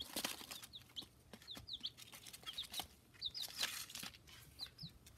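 Rhode Island Red chicks peeping: short, high chirps that drop in pitch, scattered through, over light ticking and rustling as they peck at feed on paper.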